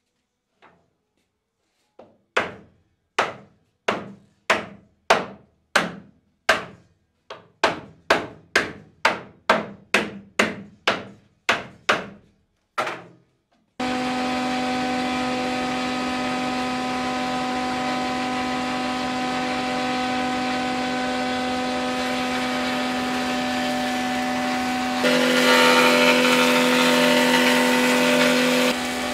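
About twenty sharp knocks of a wooden mallet on wood, one or two a second and each ringing briefly. Then a jointer runs with a steady hum, louder and rougher for about four seconds near the end as a board is fed across its cutterhead.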